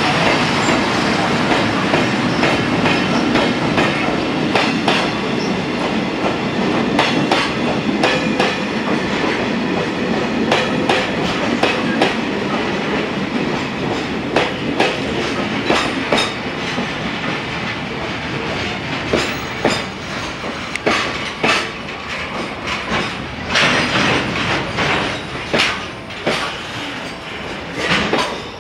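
Container freight train rolling past close by, its flatcar wheels clattering over the rail joints in a steady run of clacks that stands out more sharply in the second half.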